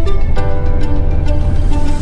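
Background music: a melody of held and plucked notes over a steady low rumble.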